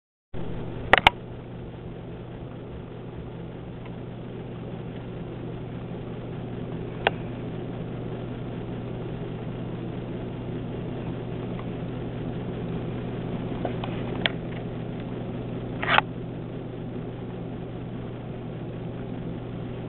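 Steady low hum of background noise, broken by a few sharp clicks: two close together about a second in and a few more scattered later. No birdsong is heard; the cardinal is silent.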